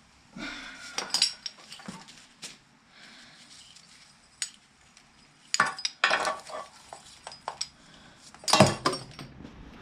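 Metal tools and parts being handled, clinking and clattering in a few short bursts: about a second in, around six seconds, and loudest near the end.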